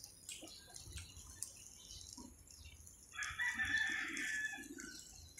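A rooster crowing once, about three seconds in, a single call lasting just under two seconds.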